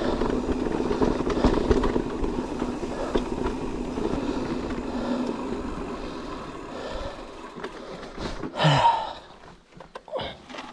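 Electric mountain bike riding over rough trail ground: tyre noise and rattling clatter from the bike, getting quieter after about six seconds, with one short loud noise near the end.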